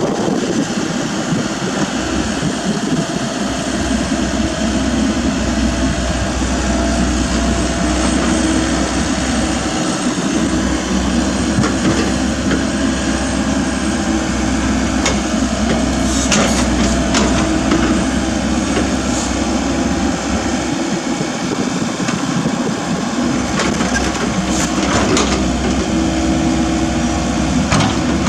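Komatsu mini excavator running steadily at work, engine humming evenly, with a few sharp knocks and clanks scattered through the middle and near the end as it digs.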